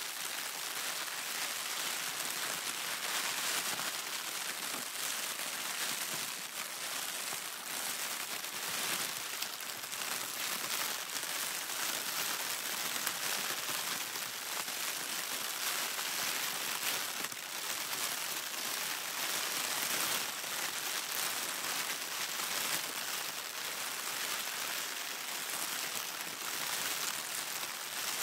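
Plastic trash bag rustling and crinkling as it is handled, a continuous dense crackle of many small crinkles with no pauses.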